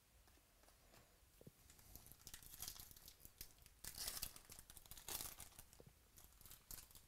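A baseball card pack's wrapper being torn open and crinkled by hand, in several crackling bursts from about two seconds in, loudest around four seconds.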